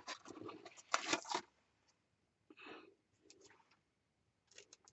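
Paper cut-outs being rustled and handled, with scratchy crackling for about a second and a half, then a soft swish and a few light taps near the end.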